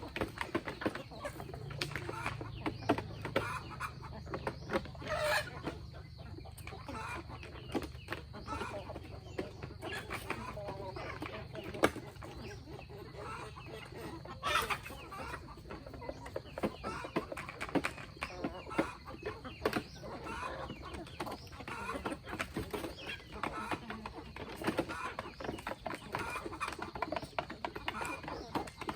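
A flock of chickens clucking, with many short overlapping calls and scattered sharp clicks. A low steady hum runs underneath through the first half.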